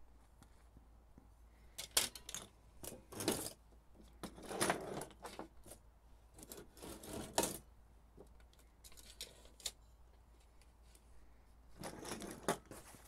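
Camping stove parts and small metal gas adapters being handled and set down on a table: irregular clicks, clinks and rustling in scattered bursts, with a few sharp clicks standing out.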